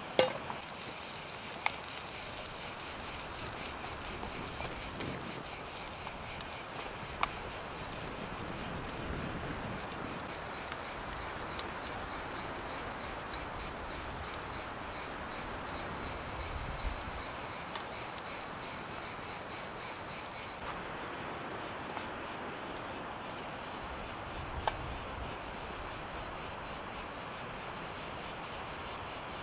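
A chorus of insects singing in a continuous high buzz that throbs rhythmically, about two pulses a second, through the middle stretch before settling back to a steadier drone. A few light knocks sit underneath, the sharpest right at the start.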